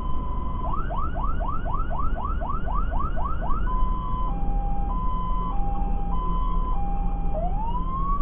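Fire engine's electronic siren switching through its modes: a steady tone, then a quick run of rising whoops about four a second, then a two-note hi-lo, and near the end a long rising wail. Underneath runs the steady low rumble of the truck's engine and tyres.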